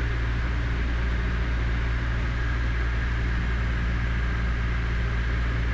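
Cessna 152's four-cylinder Lycoming engine and propeller droning steadily, heard inside the small cabin on final approach, with no change in pitch.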